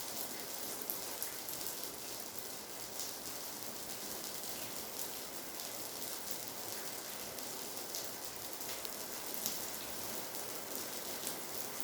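Steady rain, an even hiss with scattered sharper drop ticks landing on a nearby surface.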